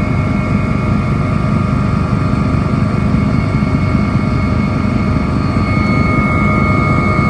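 Helicopter in flight: steady engine and rotor noise with a constant high whine over it.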